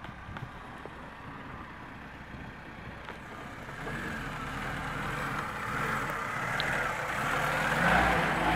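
Lada Niva's engine running at low revs as the 4x4 creeps down a steep dirt slope, getting louder as it comes close and passes by near the end.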